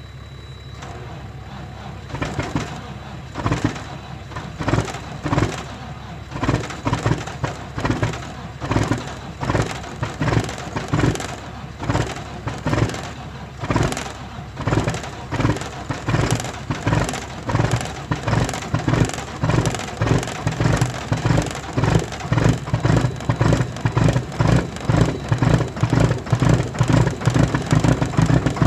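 A 2007 Mack truck's diesel engine on a cold start: a low drone at first, then from about two seconds in a heavy pulsing that grows louder and quickens to about two beats a second as the cold engine catches and starts to run.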